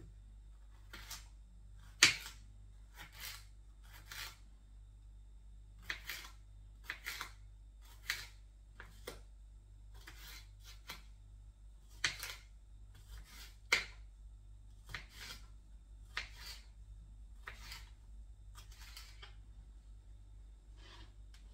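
Knife slicing sweet peppers on a cutting board: a series of short sharp taps, roughly one a second and unevenly spaced, stopping shortly before the end.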